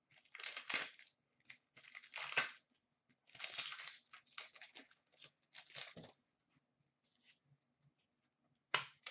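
A 2015-16 Upper Deck Champs hockey card pack wrapper being torn open and crinkled by hand, in four short bursts over the first six seconds. After that it is nearly quiet, with a brief tap near the end.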